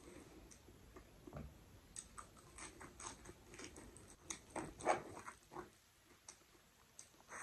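Close-up eating sounds: fingers squelching rice into runny spinach dal, and wet chewing and lip smacks, a string of short clicks that is busiest in the middle and dies down near the end.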